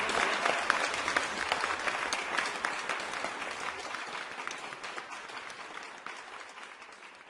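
Crowd applause, many hands clapping, fading out steadily.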